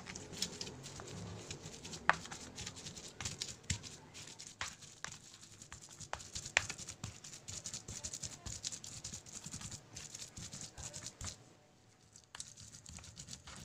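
Stone pestle grinding fried chilies, shallots and shrimp paste in a stone mortar (ulekan on cobek): irregular knocks and rubbing of stone on stone, pausing briefly about two seconds before the end.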